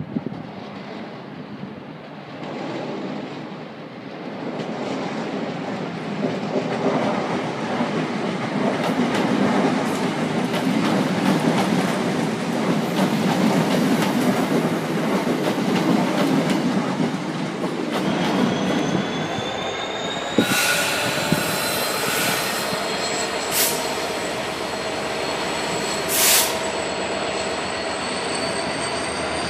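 Red Class 325 electric mail multiple unit rolling past with a steady wheel and rail rumble that grows louder toward the middle. From about two-thirds in the rumble gives way to high whines that rise slowly, broken by a few short, sharp squeals, beside a Class 66 diesel locomotive and its container train.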